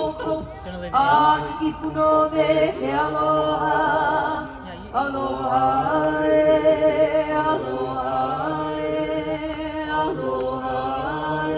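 Voices singing together in harmony, holding long notes with vibrato, with a brief break a little before the middle.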